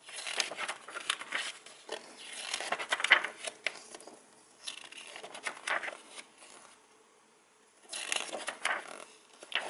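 Paper pages of a thin instruction booklet being turned by hand: several bursts of page rustling with small crisp clicks, with a short quiet pause about seven seconds in.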